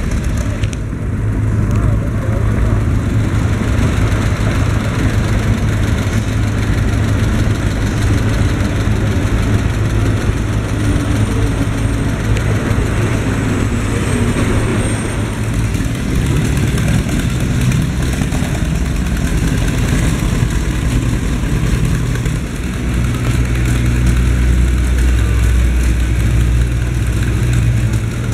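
Vintage farm tractor engines running as tractors drive past one after another, among them a John Deere 50 and a John Deere 4020. A deeper, louder engine note builds near the end as the 4020 passes.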